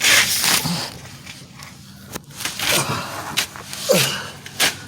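A man breathing hard with short grunts as he moves, plus a sharp click a little after two seconds.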